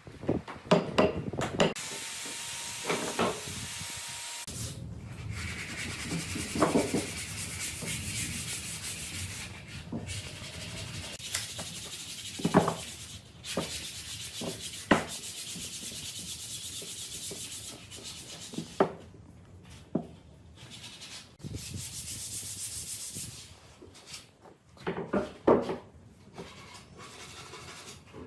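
Wood being sanded: long stretches of scratchy hiss that stop and start, with scattered knocks in between.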